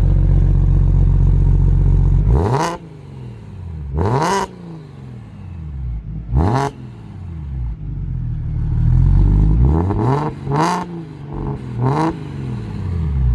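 Single-turbo BMW N54 inline-six idling, then revved in about six quick throttle blips, each rising and falling in pitch, through a VRSF 3.5-inch exhaust fitted with its street muffler.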